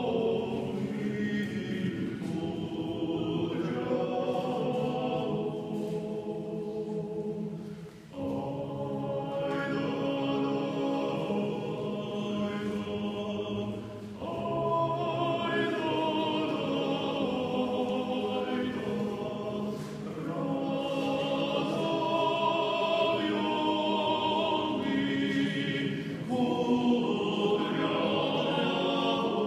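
Male vocal quartet singing a cappella in harmony, holding long chords in phrases with short breaks between them.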